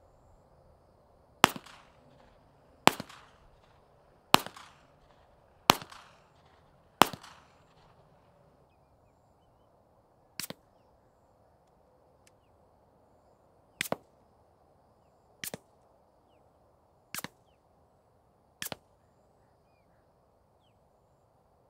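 Five unsuppressed shots from a Glock G19X 9mm pistol, heard from 50 yards, fired about one and a half seconds apart, each echoing away. Five much quieter, sharp cracks follow at irregular spacing, two of them doubled.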